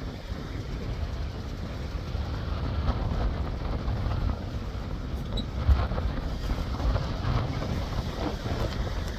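Wind rumbling on the microphone over the steady wash of surf breaking on a rocky shore, with a single brief bump a little past halfway through.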